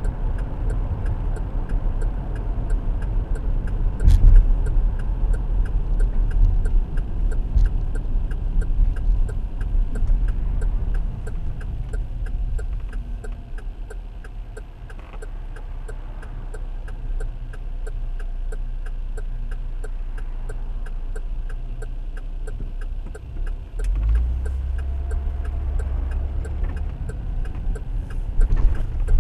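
Car cabin noise while driving: a steady low rumble of engine and tyres on the road, with a faint regular ticking over it.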